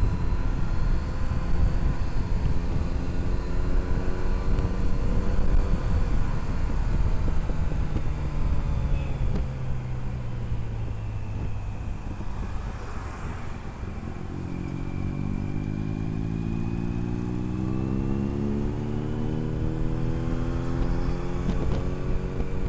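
Superbike engine on its stock exhaust under way in traffic. The engine note eases off and drops through the first half, then climbs steadily as the bike accelerates over the last third.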